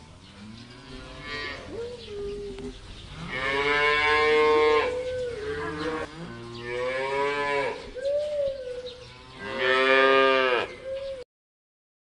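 Holstein-Friesian cattle mooing: a series of about five long moos, each rising and then falling in pitch.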